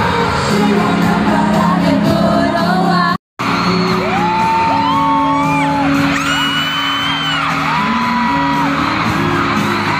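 Live concert sound in a large hall: music and singing, with fans screaming in long held, rising and falling cries over it. The sound cuts out for an instant about three seconds in, at an edit.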